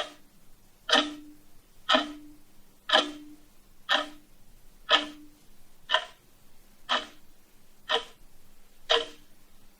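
A clock ticking steadily, one sharp tick each second, ten ticks in all.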